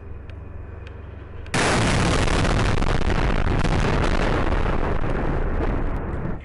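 A low idling rumble, then, about a second and a half in, a sudden loud blast from a tank's main gun firing. The noise rolls on for several seconds and cuts off suddenly near the end.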